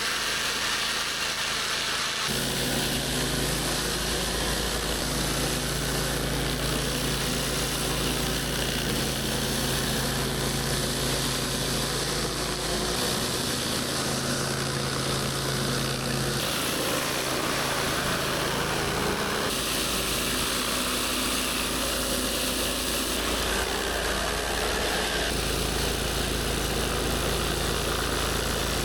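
Engine-driven pressure washer running steadily, with the hiss of its high-pressure spray over the engine note. The sound changes abruptly several times.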